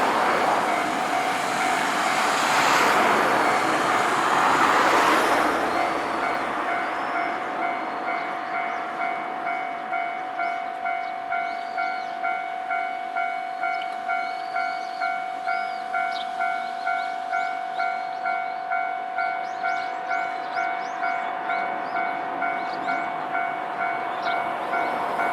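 Japanese railway level-crossing warning bell ringing in an even repeating pattern, about two strokes a second. A train rushes through the crossing about two to five seconds in.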